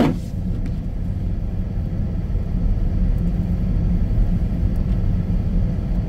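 Steady low rumble inside the cab of a Jeep Patriot creeping along a snow-covered road at low speed: engine and tyre noise. There is a brief knock right at the start.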